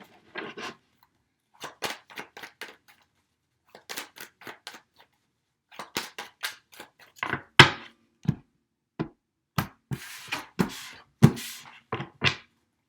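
Tarot cards being handled: a scattered series of short, sharp clicks and flicks as cards are pulled from the deck and laid down. Sparse at first, the clicks come more often and louder from about halfway through.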